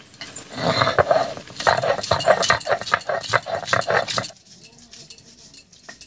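Sil-batta grinding stone: the hand stone is worked back and forth over the flat stone slab, crushing garlic cloves, green chillies and coriander leaves in quick repeated strokes, about four or five a second, that stop about four seconds in.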